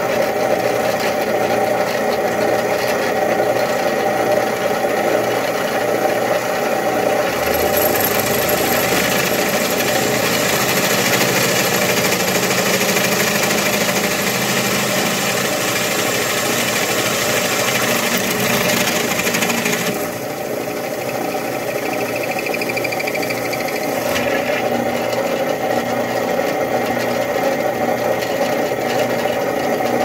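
Old drill press running with a twist bit cutting into a stainless steel cigarette-lighter cap, the motor's steady hum underneath. From about 7 seconds to 20 seconds a harsher, higher cutting noise rides over the hum as the bit bites into the metal, then eases back to the steady running.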